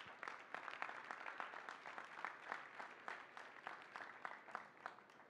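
Light applause, many hands clapping at once, thinning out near the end.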